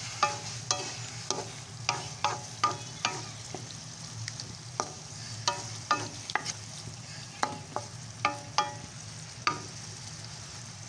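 Cubed pork sizzling in a frying pan while a spatula stirs it, knocking and scraping on the pan in irregular ringing clicks over a steady hiss.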